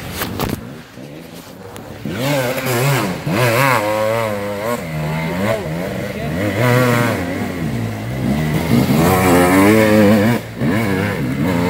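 Dirt bike engines revving up and falling back again and again as they climb a dirt hill under load. The nearest bike is loudest about nine to ten seconds in.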